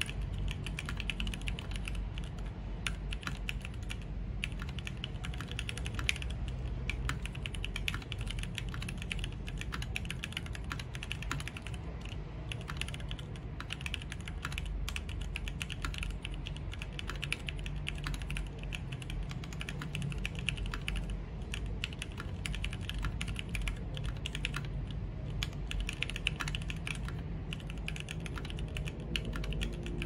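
Steady, fast typing on a 40% mechanical keyboard with stock, unlubed Gateron Yellow KS-3x47 linear switches, PBT Cherry-profile keycaps and an acrylic sandwich case: a dense, unbroken stream of keystroke clacks. The unlubed switches still have spring ping, by the uploader's account.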